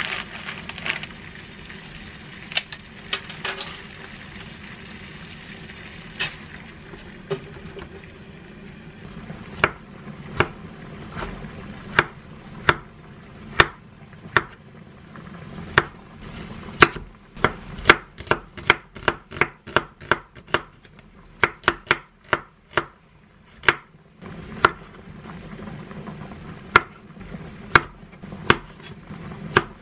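Chef's knife slicing shiitake mushrooms and halving cherry tomatoes on a wooden cutting board: a series of sharp knocks as the blade meets the board, quickening to several a second in the middle, after a few scattered clicks at the start.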